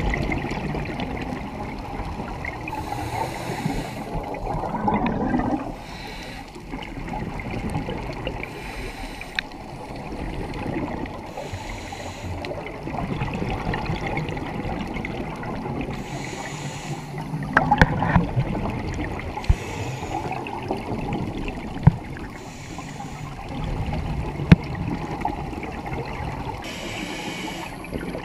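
Scuba divers' exhaled air bubbling out of their regulators, heard underwater as gurgling bursts every few seconds, in time with breathing. A few sharp clicks stand out in the second half.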